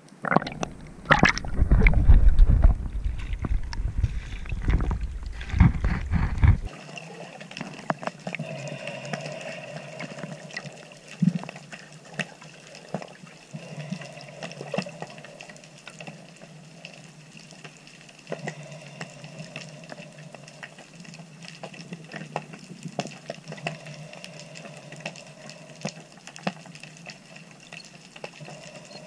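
Sea water splashing and sloshing around the camera at the surface. About seven seconds in the camera goes under, and the sound changes suddenly to a quieter, muffled underwater hiss with scattered faint clicks.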